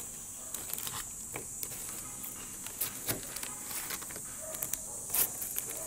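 Paper McDonald's fries packet crinkling and rustling in short scattered bursts as fries are picked out of it, over a steady high-pitched hiss.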